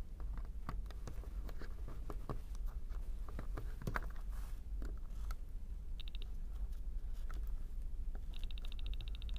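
Small screwdriver clicking and scraping in the screw terminals of an electronics interface board as a wire is clamped in. About six seconds in, a piezoelectric disc driven by a square wave gives a brief high buzzing beep, then buzzes steadily from about eight seconds in.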